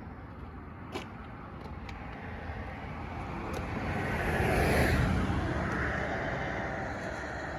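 A car passing: its engine and tyre noise swells to its loudest about five seconds in, then fades.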